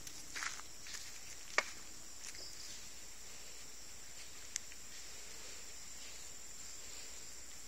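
Steady high-pitched insect chirring from the plantation, with a few short sharp clicks in the first two seconds and one more about four and a half seconds in.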